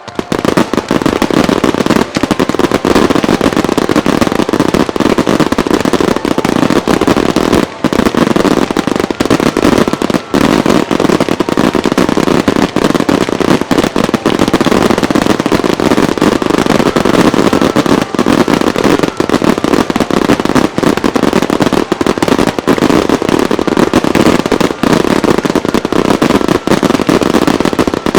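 A fireworks display barrage: aerial shells bursting in quick succession, so that the bangs and crackling merge into one loud, continuous din that starts abruptly.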